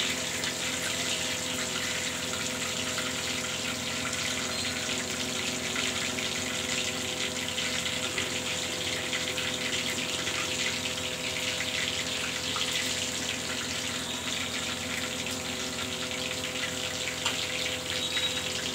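Cumin seeds sizzling in hot oil in a steel kadhai, a steady frying hiss. A steady low hum runs underneath.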